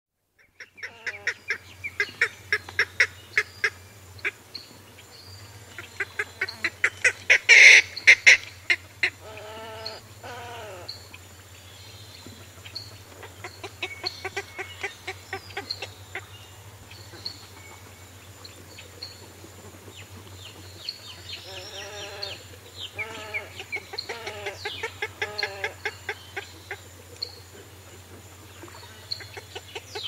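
Two green herons calling at close range, giving series of short, sharp repeated calls in bouts, loudest about a quarter of the way in. Other birds call in the distance. A steady low hum runs underneath.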